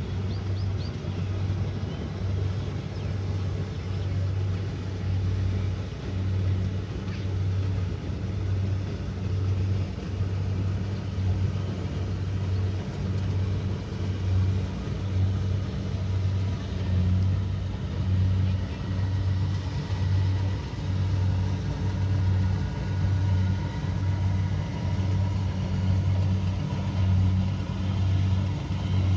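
Kubota DC70 Pro combine harvester's diesel engine running steadily under harvesting load, a low hum that swells and fades about once a second.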